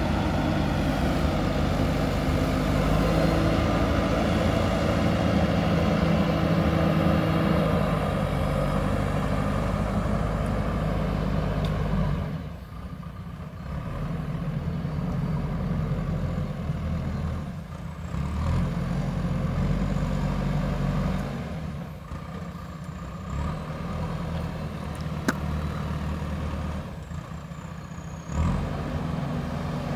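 JCB 3DX backhoe loader's diesel engine running under load, loud for about the first twelve seconds, then dropping back and rising again several times as the machine works.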